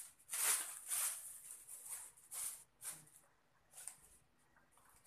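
Plastic bag and snack wrappers crinkling and rustling as packs of snacks are put into the bag, in several short bursts with pauses between, the longest in the first second.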